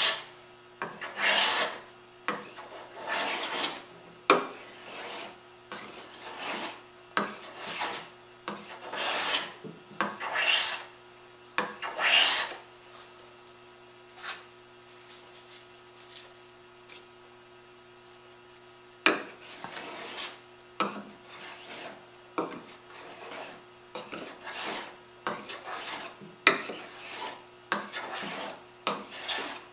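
Shoulder plane cutting curly maple in a string of short strokes, lowering a raised panel's field toward the scribe line. The strokes stop for about six seconds midway, then resume at a quicker pace.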